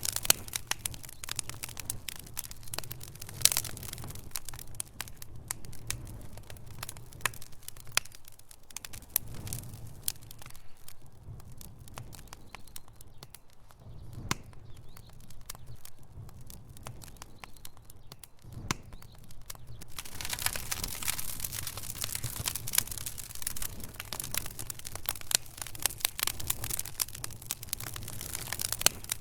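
Wood fire burning in a fireplace, crackling with irregular sharp pops and snaps from the burning logs. The crackle thins out through the middle, then grows denser and hissier for the last third.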